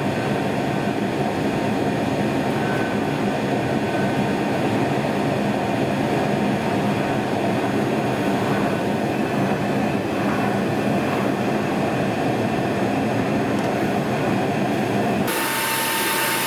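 Metal-melting furnace burner running with a steady, loud rushing noise while the bronze charge melts in the crucible. Near the end the sound changes suddenly, turning hissier with a thin steady tone.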